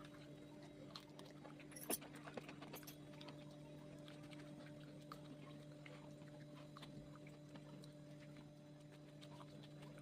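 Faint steady electrical hum with a few light clicks and taps, the sharpest click about two seconds in.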